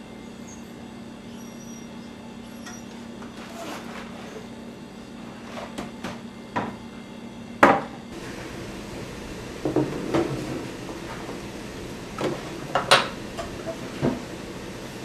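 Wooden kitchen cabinet doors being opened and shut and dishes handled: a series of separate knocks and clicks, the sharpest a little past halfway through.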